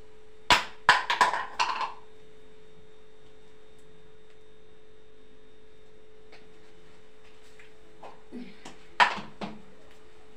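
Metal cookware clanking on a gas stove: a quick run of sharp knocks about half a second in, then one more knock near the end, over a steady faint hum.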